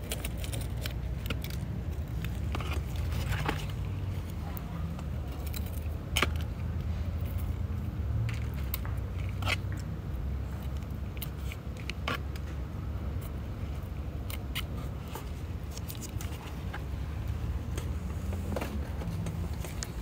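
Dry, dead succulent leaves being plucked off by hand: scattered crisp crackles and small snaps at irregular intervals, over a steady low hum.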